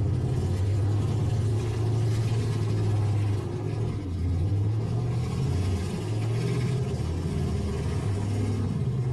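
Demolition-derby pickup truck engines running in a steady low rumble, the pitch wavering slightly as they are revved.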